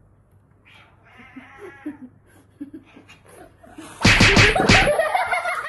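People burst out laughing loudly about four seconds in, a run of quick 'ha-ha' pulses, after a few seconds of faint murmuring voices.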